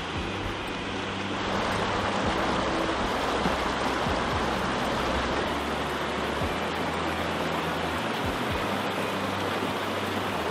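Mountain stream water rushing and splashing over boulders and down a small waterfall, a steady rush that grows louder about a second and a half in.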